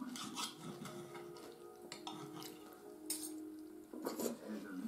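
Fingers picking through a saucy meat stew and greens on a ceramic plate: short wet, squishy handling sounds with light clicks against the plate, then a louder cluster of sounds about four seconds in as a bite is taken.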